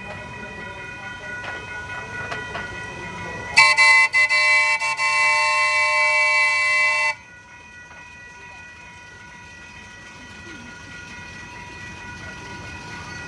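The Pineapple Express tourist train's horn blows one long chord of several notes for about three and a half seconds, stuttering briefly at first, then cuts off. Under it a steady high warning tone keeps sounding throughout, typical of the crossing's electronic signal bell.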